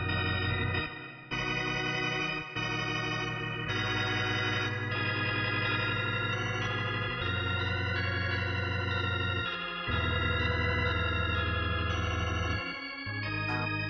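Background music: sustained organ chords, each held steady and changing every one to three seconds.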